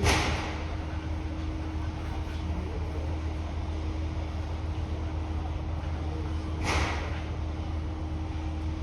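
An engine running steadily with a low hum. Two short hissing bursts come through, one right at the start and one about seven seconds in.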